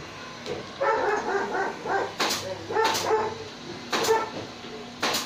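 A dog barking: a quick run of yips about a second in, then about four single barks spaced roughly a second apart.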